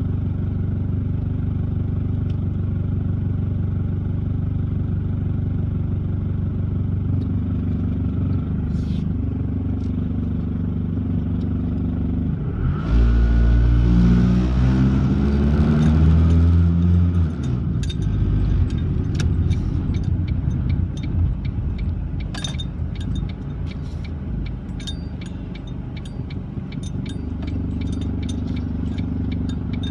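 A car's engine heard from inside the cabin, running steadily, then about 13 seconds in a loud low rumble with a rising pitch for about four seconds as the car accelerates: the horrible noise the car makes when the gas is pressed. Afterwards a run of regular clicks sounds over the quieter engine.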